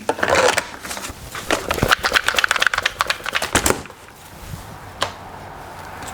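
Gasoline sloshing in a STIHL MS290 chainsaw's fuel tank as the saw is shaken to rinse out oil-thickened fuel, with a rapid rattle of clicks and knocks for about two seconds.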